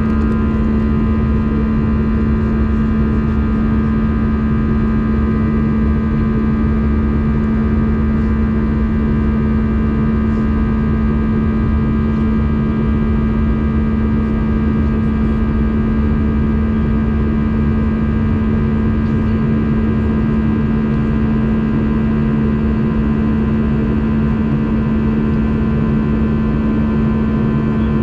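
Steady cabin noise of an Airbus A320 in flight: engine drone and rushing air, with a strong low hum and several higher steady whining tones.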